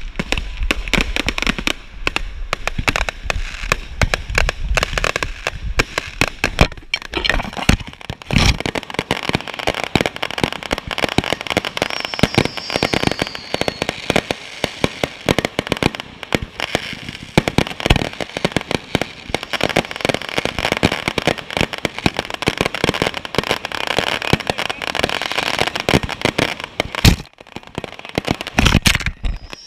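Fireworks display: dense, continuous crackling and popping with many sharp bangs of shells going off, and a faint falling whistle about twelve seconds in. The barrage thins briefly near the end.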